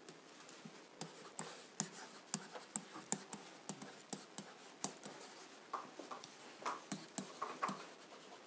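Pen writing on a whiteboard: a quick, irregular run of short taps and strokes of the tip as words are written out.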